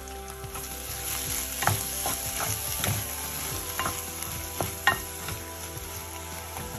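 Onion, pea and tomato masala sizzling in a non-stick frying pan while a spatula stirs mashed roasted aubergine into it, with a steady hiss and several sharp knocks and scrapes of the spatula against the pan.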